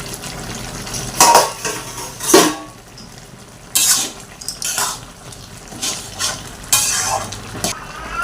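A metal spatula stirring bottle gourd curry in a cooking pan: about seven scraping, knocking strokes against the pan, roughly one a second, some with a short metallic ring.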